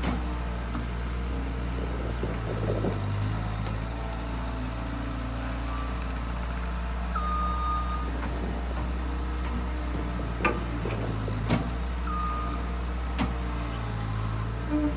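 Skid loader's engine running steadily while pulling trees. Twice a short, high, steady tone sounds over it, and there are three sharp knocks in the second half.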